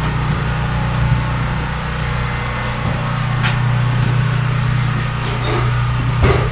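Steady low machine hum, with a couple of short knocks, the sharpest near the end.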